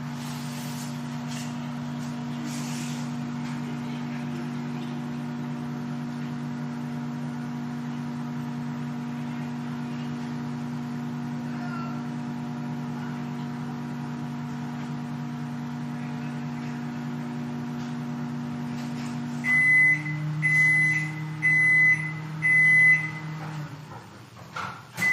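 Microwave oven running with a steady hum, then four loud high beeps about a second apart near the end as the cycle finishes, and the hum stops.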